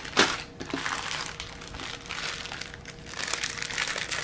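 Clear plastic packaging crinkling as it is handled and pulled open, with a sharp crackle just after the start and denser crinkling near the end.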